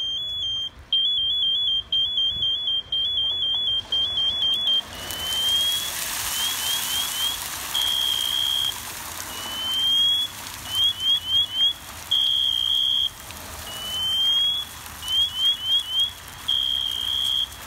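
A firefighter's PASS alarm on an SCBA pack beeping. It gives a fast two-note warble for the first few seconds, then a repeating cycle of a rising sweep, four quick rising chirps and a held steady tone, about every four seconds. From about five seconds in there is a rushing hiss as the turkey fryer's oil boils over and flares into fire.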